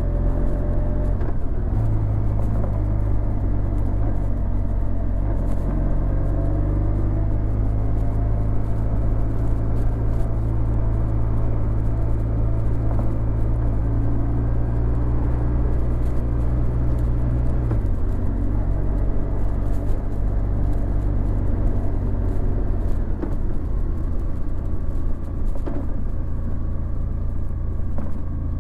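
Honda VFR1200X Crosstourer's V4 engine running under way through an Akrapovic titanium exhaust. The engine note steps up about two seconds in and drops about two-thirds of the way through, as with a change of throttle or gear.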